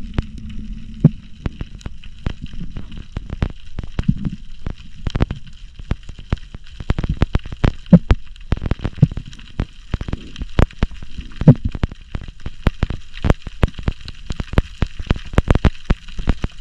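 Underwater recording full of irregular sharp clicks and pops, a few a second, some of them loud knocks, over a low rumble.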